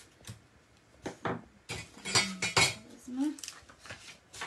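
A quick run of clinks and knocks from small hard objects being handled and set down on a desk, loudest around the middle.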